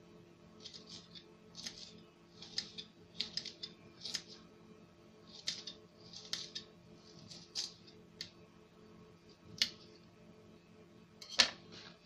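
A small kitchen knife slicing garlic cloves on a stone countertop: short, crisp, irregular cuts, one or two a second, with a sharper knock near the end.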